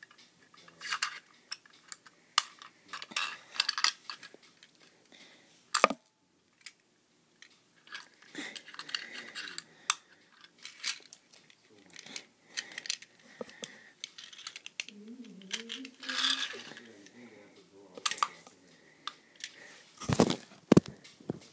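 Small hard plastic toys being handled and knocked together: irregular sharp clicks, rattles and clatters, with a loud knock about six seconds in and a cluster of heavier knocks near the end.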